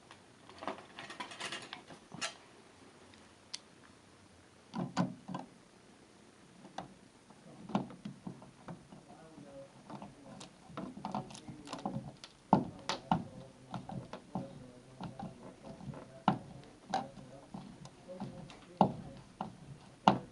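Irregular small clicks and knocks of hard parts being handled, with low rubbing in between, sparse at first and coming more often after about five seconds.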